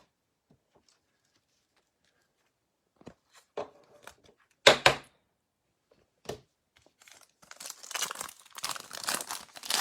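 A few light clicks and a sharp double tap as trading cards are handled. Then, from about two-thirds of the way in, a baseball card pack's wrapper being torn open and crinkled.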